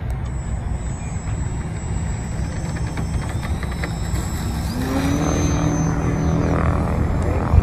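Electric RC plane's Rimfire .10 brushless outrunner motor and 10x7 propeller at takeoff power during the ground run. The whine rises in pitch about five seconds in as the plane lifts off, over a steady low noise.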